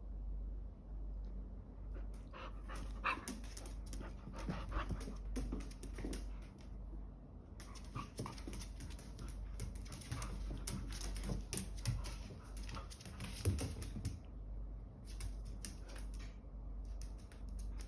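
A pet dog panting, with a few soft whimpers and irregular rustling and clicking sounds.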